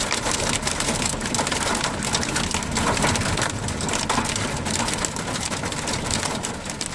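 Hailstones pelting down hard, a dense, continuous clatter of countless small impacts.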